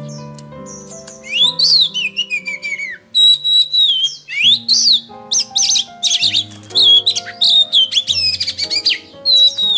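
Songbird song of loud varied whistles, sliding notes and fast chattering phrases, starting about a second in, over background music of held keyboard notes. It is a lure recording meant to get a silent oriental magpie-robin to answer and sing.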